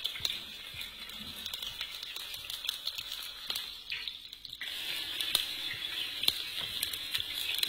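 Goat meat on the bone sizzling as it is stir-fried in a wok with freshly fried spice paste, with a spatula clicking and scraping against the pan. The sizzle thins briefly about four seconds in.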